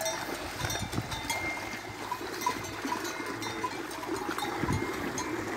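Cattle wading through floodwater, legs splashing in the moving water, with the bells on the herd clanking irregularly.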